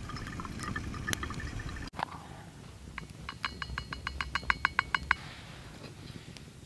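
A quick, even run of about a dozen light metal clinks with a ringing tone, about six a second, around a metal insulated coffee bottle, after a couple of seconds of faint crackling.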